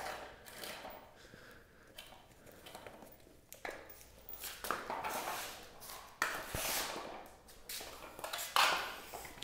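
Light clatter and rustling as a BMX wheel with a freshly mounted tire is handled and a floor pump's hose is fitted to its valve, with a sharp click about six seconds in.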